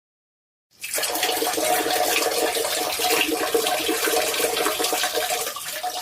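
A steady rushing noise, like water running, that starts about a second in and holds for about five seconds before stopping.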